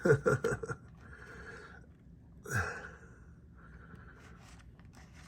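Soft breathing close to the microphone, with a short falling sigh about two and a half seconds in, over a faint steady low hum.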